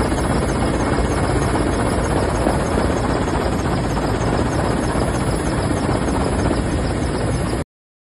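Steady engine and airflow noise inside an aircraft in flight: a constant, even rumble heavy in the low end, cutting off suddenly near the end.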